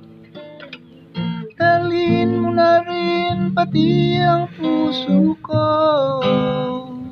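Background music: a song with a strummed acoustic guitar and a singing voice carrying a wavering melody.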